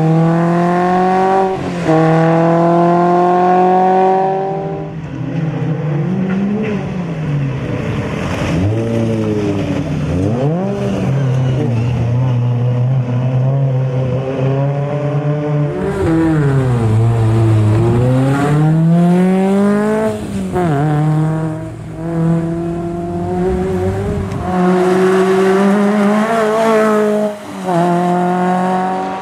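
Škoda 130L rally car's engine driven hard, its revs climbing through the gears, dropping back and pulling up again over and over. Once, in the middle, the revs fall a long way before climbing again.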